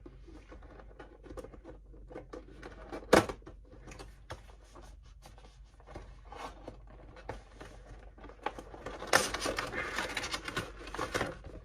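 Cardboard and plastic packaging of a Funko Pop box being handled and opened: scattered small clicks and scrapes, a sharp knock about three seconds in, then a longer stretch of scratchy rustling near the end as the figure and its plastic insert are pulled out.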